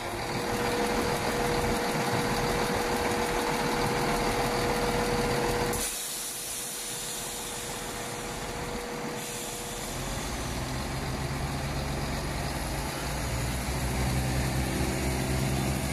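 Southern passenger train moving slowly through the platform: a steady running hum with a held whine for the first ten seconds, then a set of low running tones that grow louder from about ten seconds in.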